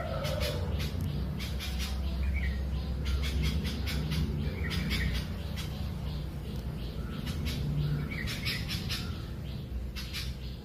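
Bulbuls calling: rapid high chirps throughout, with three short calls spaced a few seconds apart, over a steady low rumble.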